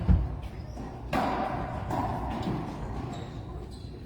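A racquetball rally: the ball is struck hard and smacks off the court walls, each hit ringing out in the echoing court. A loud low thud comes right at the start, a sharp crack about a second in, and lighter knocks after it.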